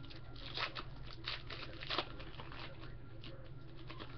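Foil wrapper of a trading-card pack being torn open and crinkled by hand, in a run of irregular crackles, the sharpest about two seconds in.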